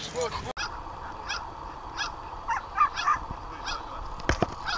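Black Russian Terrier barking repeatedly in short, high-pitched barks, roughly one every half second to second. Two dull thumps near the end.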